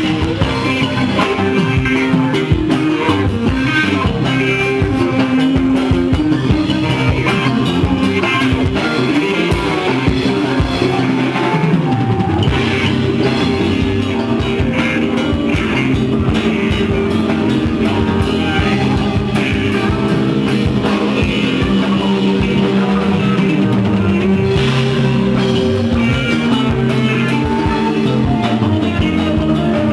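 Live rock band playing an instrumental jam, with electric guitars over a drum kit, loud and steady throughout.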